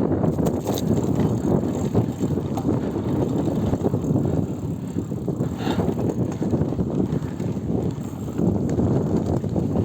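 GT Avalanche Elite mountain bike being ridden over rough ground: a steady dense crackle of tyres and rattling, with wind on the microphone.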